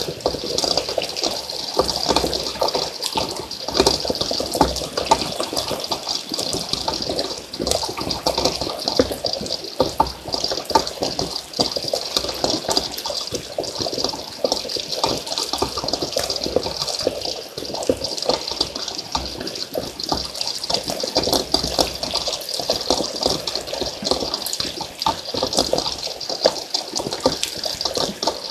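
Rainwater run-off gushing and splashing down a channel into a dam: a steady rushing of water with constant small splashes.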